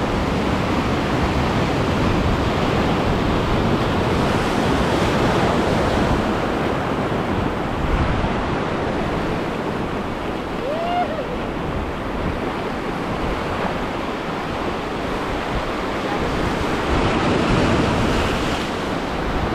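Surf washing over a shallow reef edge, with wind buffeting the microphone.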